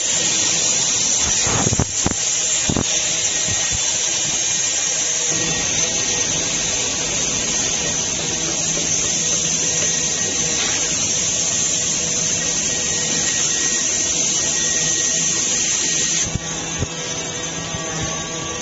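Machine tools cutting and grinding graphite blocks: a loud, steady motor whine with a high grinding hiss, a few knocks about two seconds in, and the hiss easing about sixteen seconds in.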